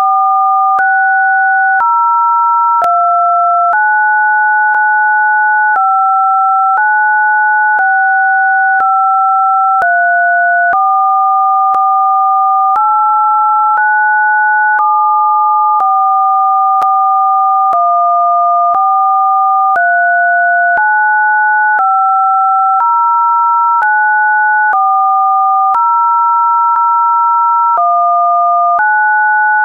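Two electronically generated pure sine tones, a higher and a lower one sounding together. Their pitches jump to new steady notes about once a second, with a faint click at each change.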